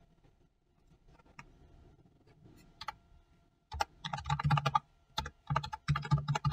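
Computer keyboard typing: a few light keystrokes at first, then quick runs of keystrokes from about four seconds in.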